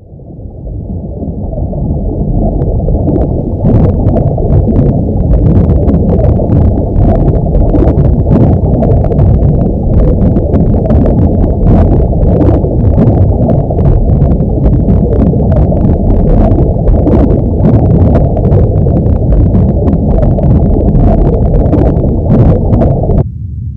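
Loud, muffled low rumbling noise that swells up over the first few seconds, with faint crackles on top, and cuts off abruptly near the end.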